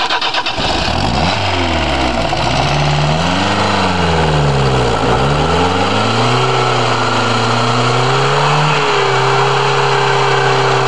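Peugeot 305 engine running, revved up and down a couple of times, then rising steadily in pitch before settling to a steady higher speed near the end.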